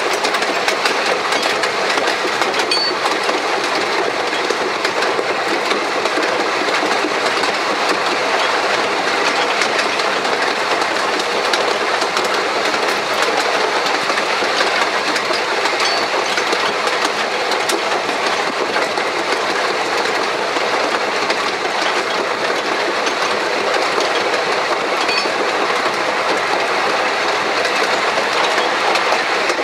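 1883 Hunslet narrow-gauge steam locomotive running along the line, heard from its tender: a steady clatter of wheels on rail, mixed with many small clicks and rattles.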